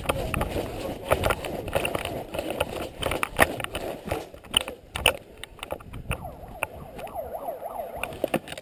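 Running footsteps and gear clattering, picked up by a head-mounted GoPro as the wearer moves at speed: irregular sharp knocks over a low rumble from movement and wind on the microphone.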